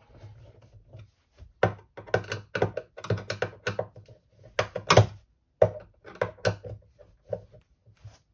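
A hand screwdriver tightening screws into a steel ball-bearing drawer slide on a cabinet wall: irregular clicks, knocks and rattles of the metal slide and driver, the loudest knock about five seconds in.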